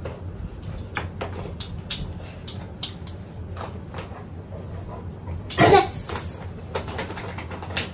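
Rustling of a fleece jacket and scattered small clicks and knocks as a dog moves about and nose-bumps a trainer's hand. A little past halfway through comes one short spoken 'yes' marker.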